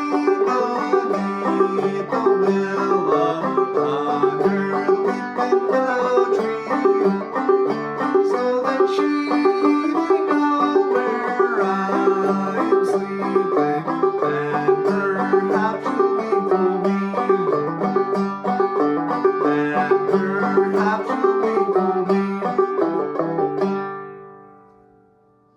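Five-string banjo played clawhammer style: a steady, driving run of picked notes and brushed strums. About 24 seconds in, the last chord rings out and fades away to nothing.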